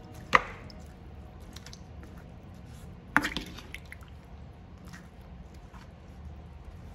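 A ladle stirring cassava pieces in water in an earthenware clay pot: two sharp knocks of the ladle against the pot, about three seconds apart, with fainter clicks and wet stirring sounds between.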